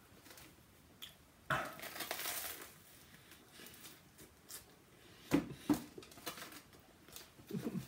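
A crunchy bite into a Flaming Hot Cheetos–coated soft-shell crab sandwich, a crackling crunch lasting about a second from one and a half seconds in. Quieter chewing and a couple of sharp clicks follow around five and a half seconds in.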